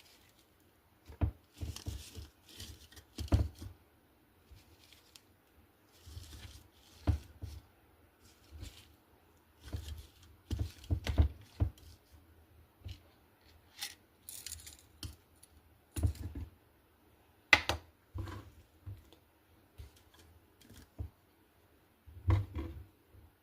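Kitchen handling sounds as diced lemon, cloves and mint leaves are put into a tea infuser: irregular clicks, knocks and light rustling, with one sharper knock a little past the middle.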